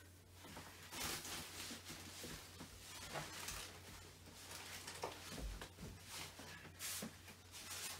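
Faint rustling of fabric bedding being handled, in several soft bursts, with a short low thump about five and a half seconds in.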